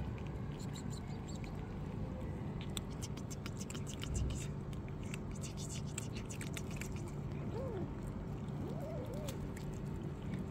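Cats crunching dry kibble: a run of quick, crackly crunches from about half a second in to seven seconds in, over a steady low background hum. A few faint wavering calls come near the end.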